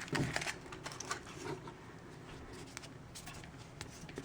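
Soft rustling and small clicks of hands handling a foil-wrapped Kinder Surprise egg, thinning out to faint ticks after about a second and a half.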